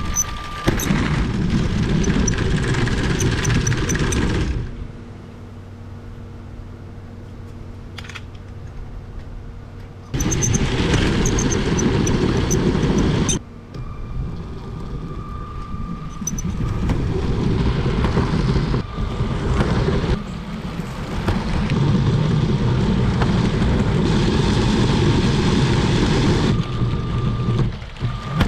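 Lego City trains rolling on plastic track close to the microphone: a loud rattling rumble of wheels over the track, dropping to a quieter steady hum for about five seconds near the start, and changing abruptly several times.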